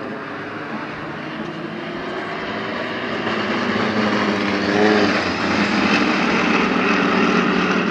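Piston engines of four single-engine propeller aerobatic planes flying in formation, a droning growl that swells as they pass overhead, loudest about five seconds in, with a slight dip in pitch there.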